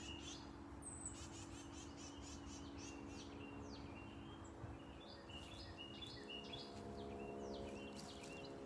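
Several songbirds chirping and calling, many short notes and quick falling whistles, faint over a steady low hum.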